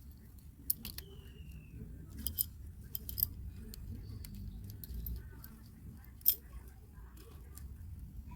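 Scattered sharp clicks and light metallic ticks from hand work on wiring with small tools. Five or six distinct clicks, the loudest about six seconds in.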